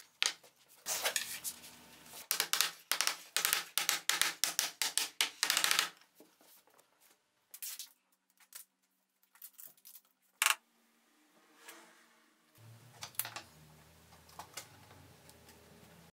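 Rapid, irregular clicking and knocking of tools and wood on a workbench for several seconds, then scattered light knocks as wooden strips are handled and set down, with one sharp click about ten seconds in.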